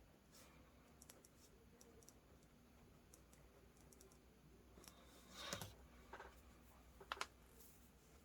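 Faint small clicks and taps from someone working quietly at a desk, with a brief rustle about halfway through and a sharp double click near the end.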